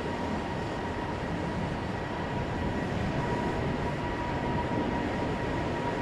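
Steady rumbling noise of strong wind on the microphone, with a thin steady high whine running through it.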